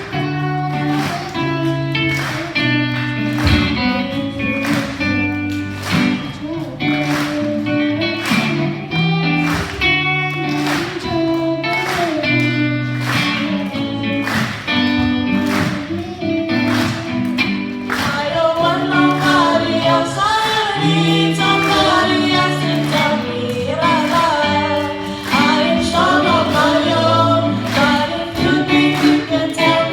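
Music with a steady beat, about two beats a second; sung vocals join about halfway through.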